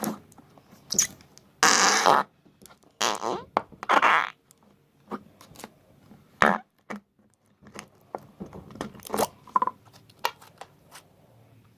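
A string of short fart sounds at irregular intervals, the longest and loudest about two seconds in.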